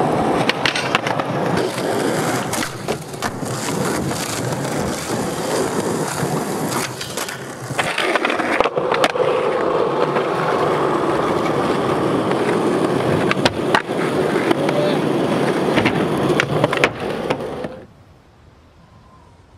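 Skateboard wheels rolling over rough, worn concrete, with sharp clacks of the board hitting the ground now and then. The sound cuts off abruptly near the end.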